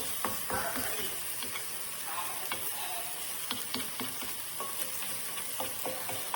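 Food sizzling in a hot frying pan, a steady hiss with scattered light clicks and taps, as of a utensil against the pan.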